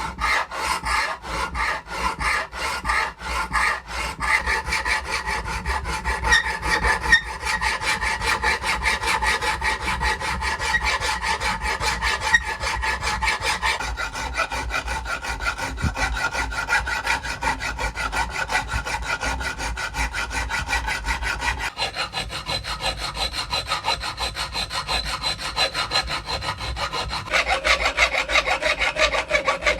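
Rapid back-and-forth hand-abrading strokes on a rusty old hammer, several strokes a second, with a few steady ringing tones over them that change suddenly a few times.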